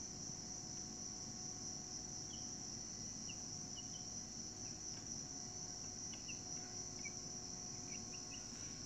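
Insects trilling in one continuous high-pitched drone, with a few faint short chirps scattered over it.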